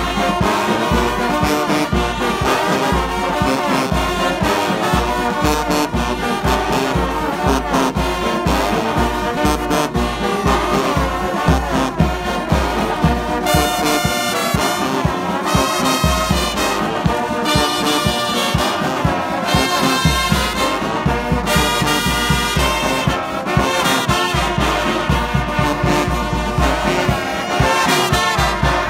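Music with brass horns over a steady beat.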